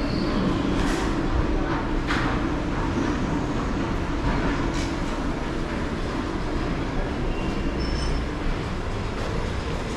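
Steady heavy mechanical rumble, like a large vehicle or machine running, with a few sharp metallic knocks and faint squeals over it.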